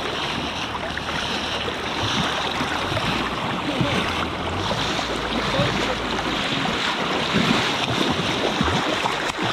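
Fast river current rushing and lapping close to the microphone, with wind buffeting it in a low rumble. A hooked fish splashes at the surface near the end.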